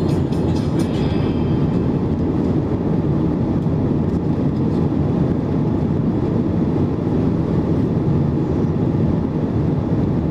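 Steady low rumble of a moving vehicle, unchanging in level and pitch.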